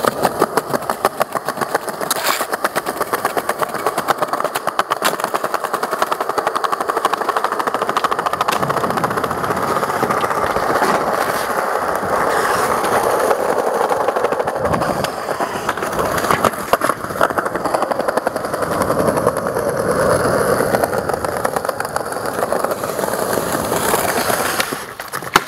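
Skateboard wheels rolling fast over stone paving slabs: a dense, rapid rattle of clicks, with a few sharper knocks of the board now and then.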